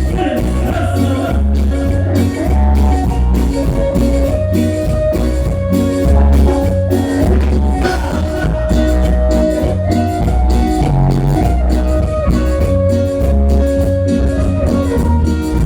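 A live cumbia band playing an instrumental passage: a heavy pulsing bass beat and steady percussion under a lead melody of long held notes.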